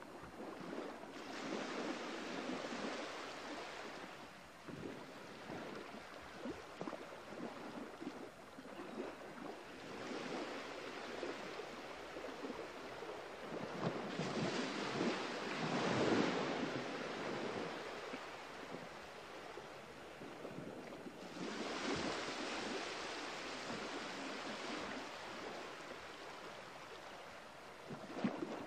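Rushing sound of waves washing on a shore, swelling and fading several times, loudest about halfway through.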